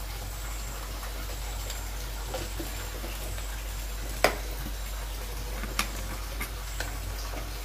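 Masala-seasoned chicken stock at a rolling boil in an open pressure-cooker pot, a steady bubbling hiss. A few sharp clicks come through it, the loudest about four seconds in.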